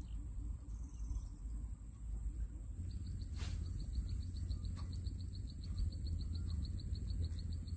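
An insect chirping in a fast, even pulse, starting about three seconds in, over a steady low rumble and a thin, steady high whine; a single sharp click comes a little after the chirping starts.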